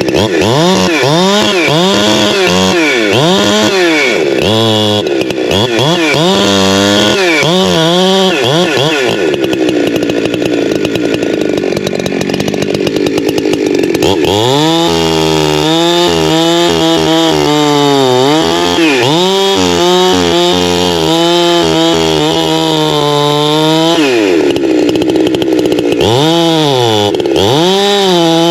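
Holzfforma G372XP Pro two-stroke chainsaw working into a tree trunk. It is revved up and down over and over, held at a steady high pitch for a few seconds, then runs at a lower, labouring pitch under load for about ten seconds, and is revved up and down again near the end.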